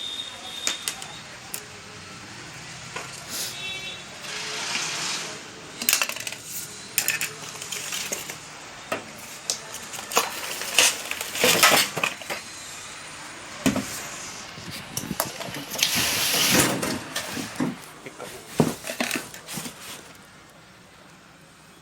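Metal tool parts and packaging being handled while unboxing a magnetic core drill and its broach cutters: irregular metallic clinks and knocks, with several stretches of rustling.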